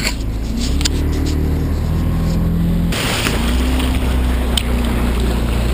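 Motorboat engine running underway with a steady low hum that steps up in pitch about half a second in. About three seconds in, rushing, splashing water joins it as the camera dips to the waterline beside the hull.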